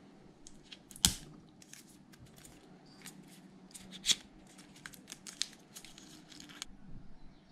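Hands handling the packaging and accessories of a new laptop during unboxing. There is a run of irregular sharp clicks and rustles, loudest about one second in and again about four seconds in, which stops shortly before the end.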